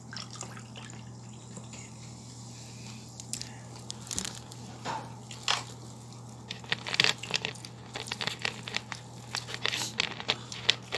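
Crinkling, clicking and wet squishing of roast chicken being pulled apart and eaten by hand. The sounds are sparse at first and grow busier about halfway through, over a steady low hum.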